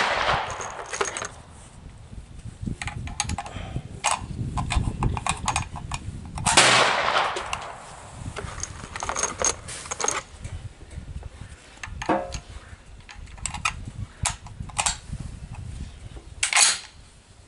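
Gunshots on a shooting range: a loud report about a third of the way in and another near the end, each trailing off in echo, among fainter shots and clicks.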